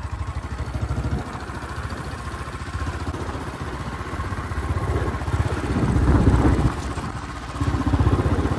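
Motorcycle engine running as the bike is ridden, with a low pulsing exhaust beat. It swells a little past halfway, eases off briefly, then picks up again near the end.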